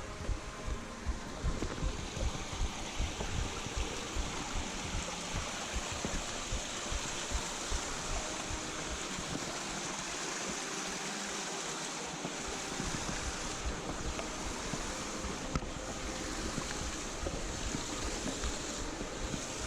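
Steady rush of flowing water from a mountain gorge stream, with frequent low thumps on the microphone.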